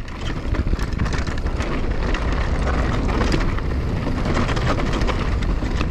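Canyon Torque enduro mountain bike rolling fast down a dirt and grass trail: steady wind rumble on the camera's microphone, with the tyres crunching over the ground and frequent clicks and rattles from the bike.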